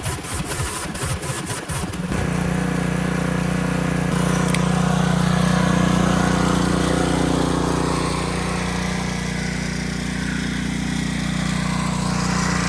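Honda small engine on a pressure washer, freshly tuned up. It sets in about two seconds in, after a couple of seconds of uneven rapid clicking, and then runs steadily, a little louder in the middle.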